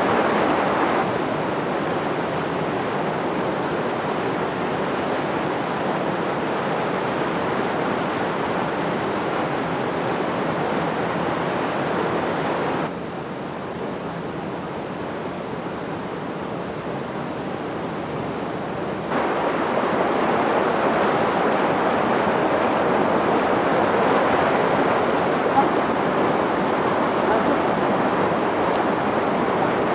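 Steady rushing of a jungle stream and waterfall over rocks. It drops quieter for about six seconds midway, then comes back louder.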